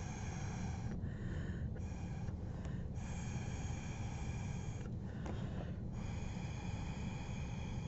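Breath blown hard through a drinking straw onto wet watercolor paint, pushing the drops across paper. About five blows of one to two seconds each, breathy with a faint hollow tone.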